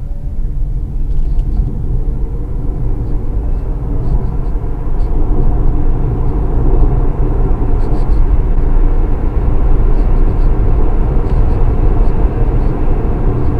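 Inside the ORA Good Cat 500 Ultra's cabin as the electric car, driven by its front-mounted 143 hp motor, accelerates flat out from standstill to 100 km/h. Road, tyre and wind noise climb over the first several seconds and then hold loud, and a faint rising motor whine runs under it early on.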